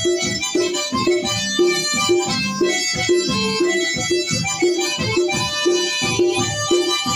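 Harmonica playing a melody over an acoustic guitar strummed in a steady rhythm.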